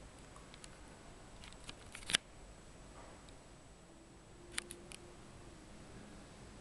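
Quiet room tone broken by a few sharp clicks: a small cluster about two seconds in, ending in one louder click, then three quick clicks a couple of seconds later.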